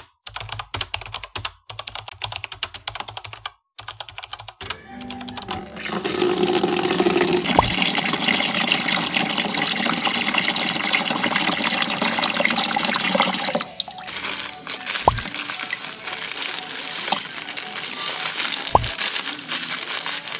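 Rapid keyboard-typing clicks, then from about five seconds in a kitchen tap runs steadily into a plastic basin in a stainless-steel sink. The flow stops about fourteen seconds in, and quieter water sloshing follows with a few soft knocks as coarse salt is poured in from a plastic bag.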